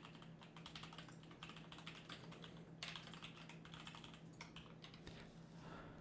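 Faint computer keyboard typing: a quick, uneven run of key clicks over a steady low electrical hum.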